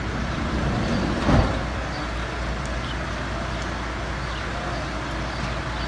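Steady outdoor background noise with a low vehicle engine hum, as from a vehicle idling, and one dull knock about a second and a half in.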